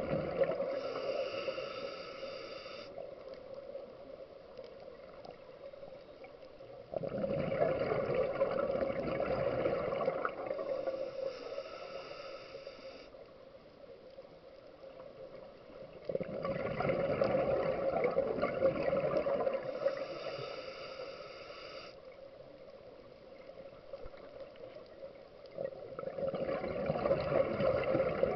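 Scuba diver breathing through a regulator, heard underwater: a bubbling rush of exhaled air about every nine seconds, with a hissing inhalation through the regulator between them.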